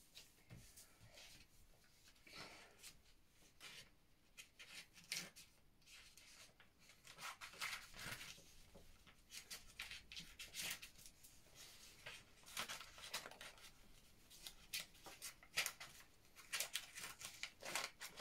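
Small scissors cutting paper: a long run of faint, irregular snips and crisp paper sounds.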